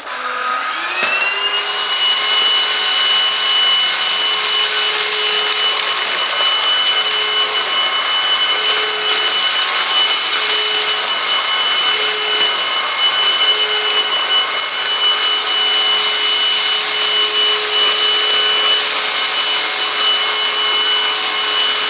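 Silvercrest SHAZ 22.2 F7 cordless cyclonic vacuum cleaner running in eco mode on a very thick carpet. Its motor whines up to speed in the first second or two, then runs steadily with a high whine over a rushing hiss of air.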